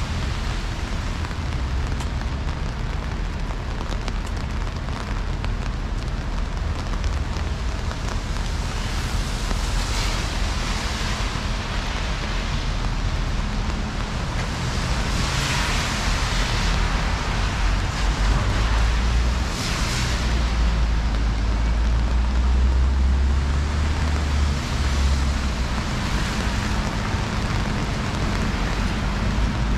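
Rainy city street: a steady hiss of rain and tyres on wet pavement over a heavy low rumble, swelling louder a few times as vehicles pass.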